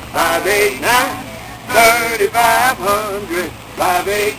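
A man singing a jingle of a utility's outage phone number, the digits repeated in a catchy tune.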